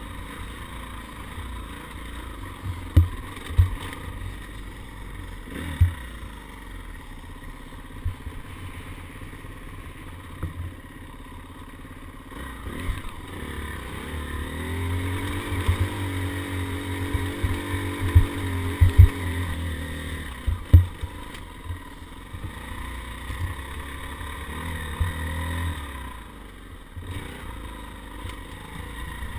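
Dirt bike engine running under the rider, pulling harder with rising revs about halfway through on a climb. Sharp knocks from the bike jolting over bumps and rocks come a few times early on and again during the climb.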